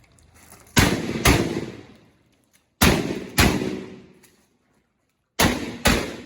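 Pump-action shotgun fired six times in three quick pairs, the two shots of each pair about half a second apart and about two seconds between pairs, each shot trailing off in a reverberant tail.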